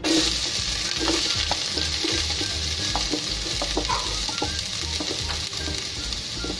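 Finely chopped onion dropped into hot refined oil in a kadhai, sizzling as soon as it hits and frying on as a steady sizzle with small crackles.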